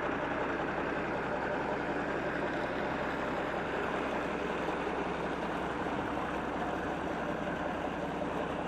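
John Deere 4630 tractor's six-cylinder diesel engine idling steadily.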